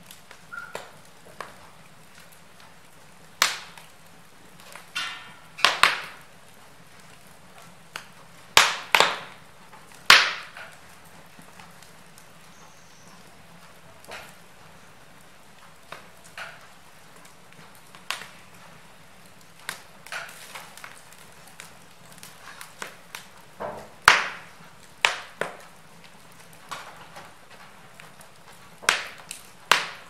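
Wood logs burning in a fireplace, crackling with irregular sharp pops and snaps over a soft steady hiss; several snaps are much louder than the rest.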